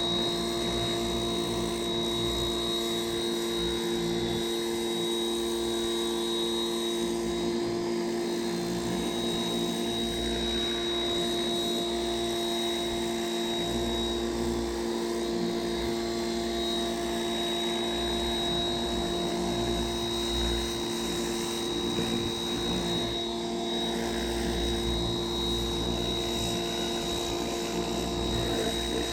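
Pressure washer running steadily, a constant machine drone with spray hiss over it.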